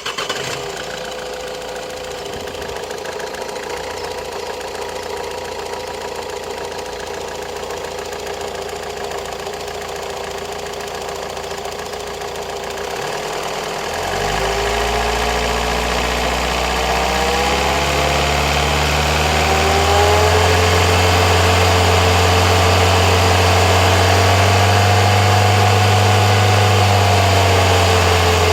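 Opel Astra J 1.7 CDTI four-cylinder turbodiesel running just after starting, with a clicking (tacanit) noise from the engine. About halfway through a deeper note comes in and the engine speed rises slightly, holds, then drops back near the end.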